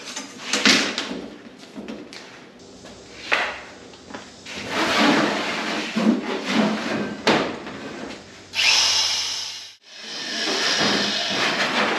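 Sheet metal being cut to size with a corded power tool, with rattles and thumps of the sheet on the plywood bench between spells of the tool running. One steady run of about a second near the end cuts off suddenly.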